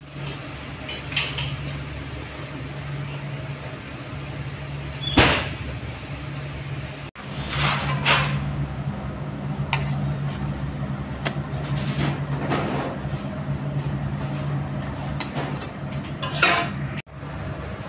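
A steady low mechanical hum with a few short knocks and clatters on top. The hum drops out briefly twice.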